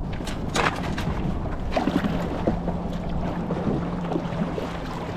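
Water sloshing and splashing, with wind rumbling on the microphone, as the hunter moves out through the water to retrieve downed teal. A few sharp knocks in the first second, and a steady low hum from about two seconds in.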